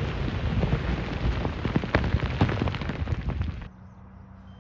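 Aftermath of a rock blast: a continuous rumble with many sharp cracks as blasted rock and debris come down. It cuts off about three and a half seconds in to a faint steady hum.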